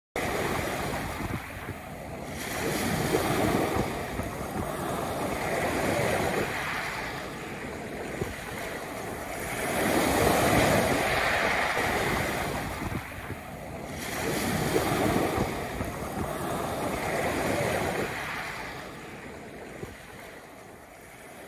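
Ocean surf: waves breaking and washing in, the noise swelling and falling back every three to four seconds, about five times, then fading out near the end.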